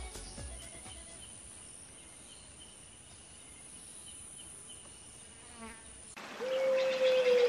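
Insects: a faint steady high-pitched chirring, then about six seconds in a louder insect buzz cuts in, falling slowly in pitch.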